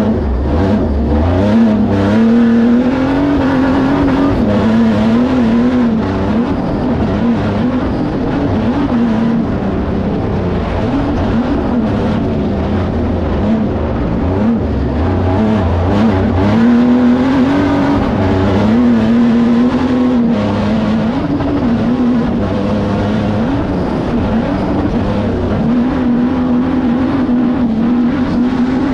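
Pro Spec short-course off-road race truck engine heard onboard through a lap, its revs rising and falling again and again as the driver works the throttle through the corners and jumps.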